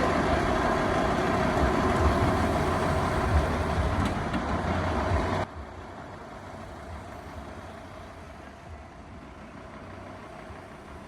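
Fire engine's engine running steadily. About five and a half seconds in it cuts off abruptly to a much quieter, steady rumble.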